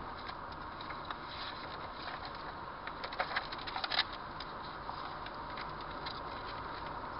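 Steady driving noise inside a car's cabin as it follows along a road, with a short run of sharp clicks and crackles about three to four seconds in.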